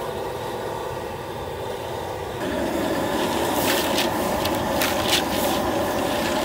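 Gas wok burner running steadily under a wok of heating water. About two and a half seconds in the sound steps up louder, and a few sharp ticks follow as dried sweet potato noodles are pushed into the hot water.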